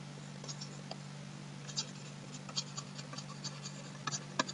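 Faint scratches and ticks of a stylus writing on a pen tablet, the pen strokes coming irregularly and bunching up toward the end, over a steady low electrical hum.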